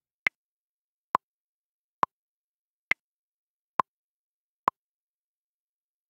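Metronome click pulse counting in crotchet beats: six short clicks evenly spaced a little under a second apart, about 68 to the minute, with the first and fourth higher-pitched. It is the count-in for a rhythm-dictation extract.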